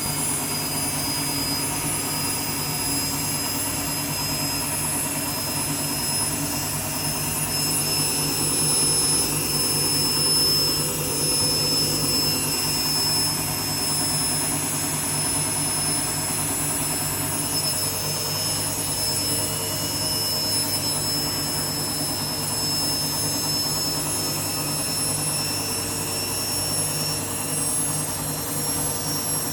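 Empty washing machine drum in its final spin, running steadily at speed with a low hum and a high whine. The owner takes the sound for the drum bearings going.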